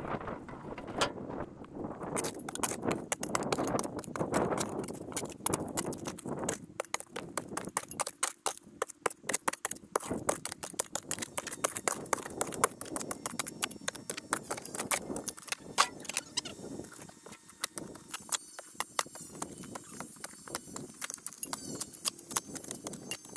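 Sped-up shovel digging: a rapid, uneven run of sharp clicks and scrapes of a spade working into the ground.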